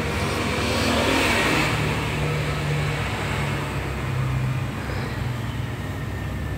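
A motor vehicle's engine running as it passes, swelling about a second in and then settling into a steady low hum.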